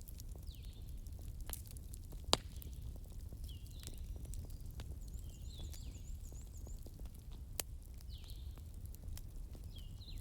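Wood fire crackling over a low steady rumble of flames, with small ticks throughout and two sharp louder pops, one about two seconds in and one near eight seconds. Short high chirps repeat in the background every couple of seconds, with a brief high trill midway.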